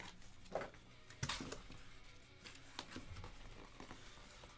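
A few faint, scattered clicks and soft knocks from handling objects at a desk, over quiet room tone.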